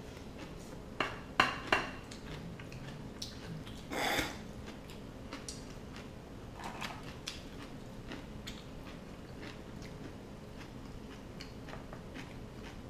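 Table sounds of eating steamed king crab: three sharp clicks of a pick and utensils against crab shell and plates, then a short scrape or crunch about four seconds in, with faint scattered taps and chewing.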